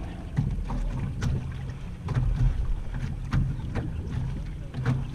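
Small waves slapping and lapping irregularly against the hull of a Weta trimaran sailing slowly, over a steady low rumble of wind on the microphone.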